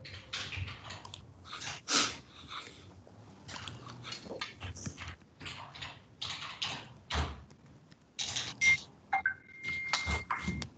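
Computer keyboard being typed on: irregular key clicks as a password is entered. A thin steady high tone sounds for the last couple of seconds.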